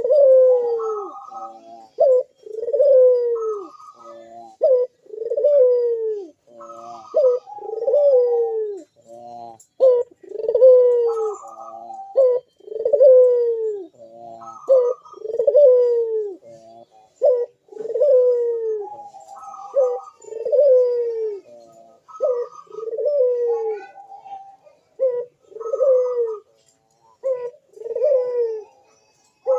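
Puter doves cooing over and over: a falling coo about once a second, with shorter, higher-pitched notes between the coos.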